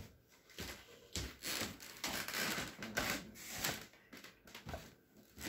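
A sharp click, then irregular rustling and knocking a few times a second as someone handles and moves things about.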